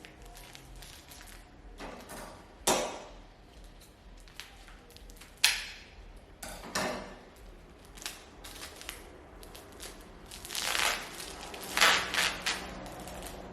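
Dry rustling and crinkling from handling bundles of dried pampas grass, in several short bursts with quiet between and a longer stretch near the end.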